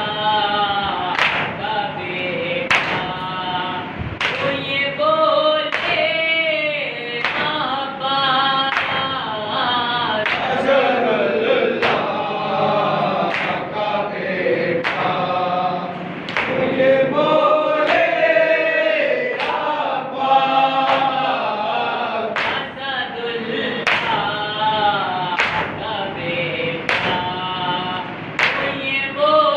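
Male voices chanting a nauha, a Shia mourning lament, unaccompanied, with the sharp slaps of chest-beating (matam) landing in time about every second and a half.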